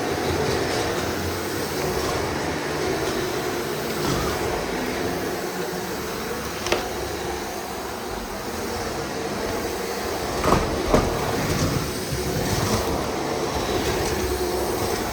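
Shark NZ780UKT upright vacuum cleaner running steadily as it is pushed over the floor, with a few sharp knocks and clicks about seven seconds in and again around ten to eleven seconds in.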